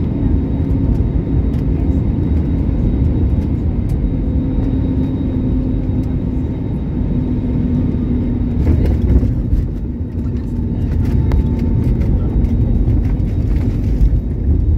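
Airliner cabin noise during taxi after landing: a steady low rumble of the engines and the wheels rolling, with a faint steady hum over it. A cluster of small clicks and rattles comes about nine seconds in.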